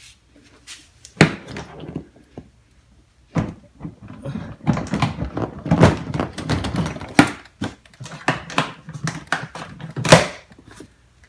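Tools and a tool box being handled and put away: a run of knocks, clatters and thunks of hard objects, with a sharp knock about a second in and another near the end.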